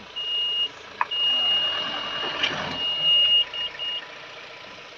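High electronic warning buzzer sounding one steady tone in an irregular pattern: a short beep, a long tone of about two seconds, then three short beeps. A sharp click comes about a second in, under a low rumble of the pickup working through mud.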